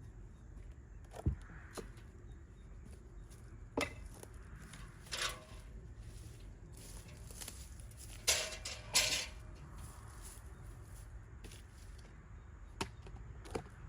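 A few scattered short knocks and clinks, like hard objects or metal tools being handled, over a quiet background.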